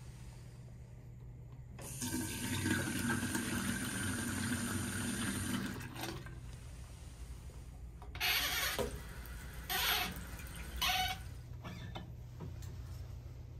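Bathroom sink's single-lever tap turned on, water running into the ceramic basin for about four seconds before it is shut off. A few seconds later water runs again in three short spurts.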